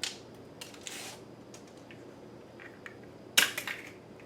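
Small plastic toy and packaging being handled: a few scattered clicks and rustles, the loudest cluster about three and a half seconds in.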